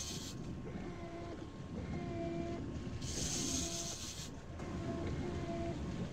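Big-game fishing reel being cranked in short whining spurts while fighting a large fish. Two longer high hissing bursts come about three seconds apart, over a steady low rumble of the boat and water.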